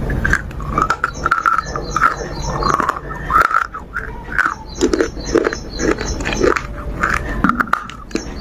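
A songbird singing: runs of short, quick high chirps repeated in phrases, over a mix of lower animal noises.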